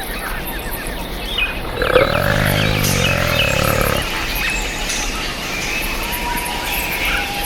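A big cat's growling call lasting about two seconds, starting about two seconds in, with birds chirping around it.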